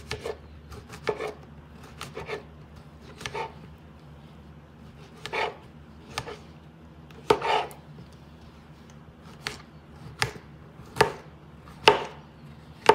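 Kitchen knife slicing white button mushrooms on a cutting board: a dozen or so short, sharp knife strokes, spaced unevenly and coming about once a second in the second half.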